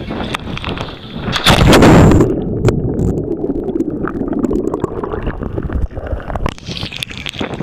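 A diver carrying the camera hits the sea with a loud splash about a second and a half in. Then come about four seconds of muffled underwater rushing and bubbling, and near the end the open-air sound of water and wind returns as the diver surfaces.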